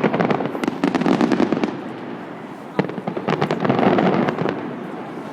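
Fireworks display going off: dense crackling bursts in two waves, the second starting after a brief quieter lull about two seconds in.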